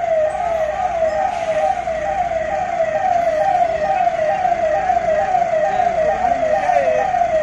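Emergency vehicle siren on a fast, repeating downward sweep, about three sweeps a second, over steady background noise.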